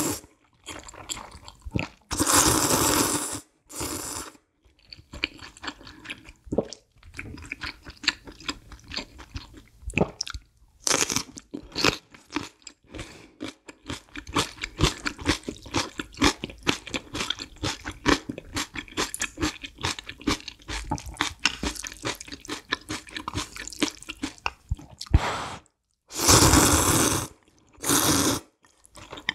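Slurping of spicy noodles at the start and near the end. In between comes a long run of crisp, rapid crunching as whole green chili peppers in kimchi seasoning are chewed.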